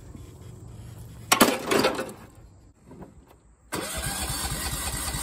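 John Deere riding mower's engine turning over on the starter, a rapid even chugging that begins abruptly about four seconds in. Before it come a low hum and a brief loud rushing noise.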